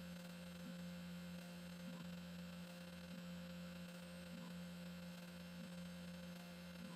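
Foxalien WM3020 CNC spindle running with a quiet, steady hum while a 0.6 mm drill bores a row of holes in a copper-clad PCB. A faint regular pulse comes about once a second, in step with the drill plunging hole after hole.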